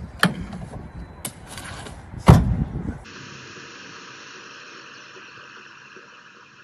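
A few sharp knocks and one loud bang about two seconds in, around a crashed sedan with its door open. Then steady car cabin and road hiss that fades near the end.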